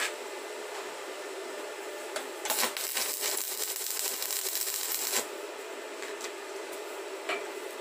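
Stick-welding arc crackling for about three seconds, then cutting off: a tack weld laid with a coated rod on a Lynus 200 inverter welder. A steady hum lies under it throughout.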